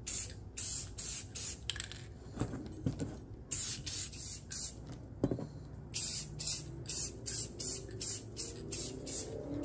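Aerosol spray paint can hissing in many short bursts, roughly two a second, as paint is sprayed onto small steel brackets. A few knocks fall in the pauses, the sharpest about five seconds in.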